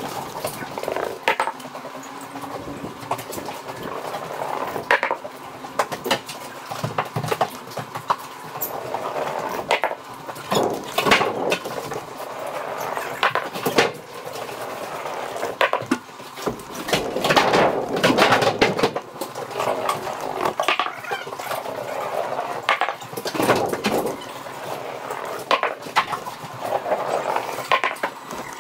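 Large Bridgestone tractor tyres being unloaded by hand from a box trailer: irregular knocks, thuds and clatters as a tyre is rolled and bumped across the trailer's floor and walls, with scuffing and rumbling between the knocks.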